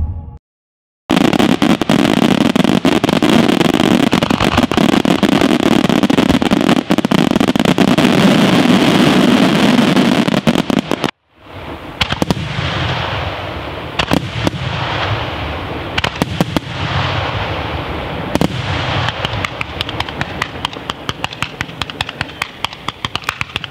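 Fireworks going off: about ten seconds of dense, continuous crackling and banging, then, after a brief break, comets and shells fired from ground level with separate sharp pops that turn into a quick, even series of reports near the end.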